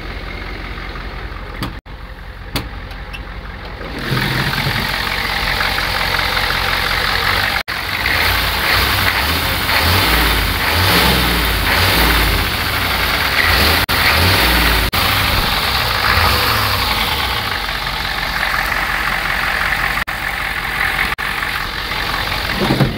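Ford 7.3 IDI turbo-diesel V8 running through a straight-piped 2.5-inch turbo exhaust with no muffler, with a throaty, whooshing note. It runs steadily, then gets louder from about four seconds in, with the engine tone rising and falling through the middle.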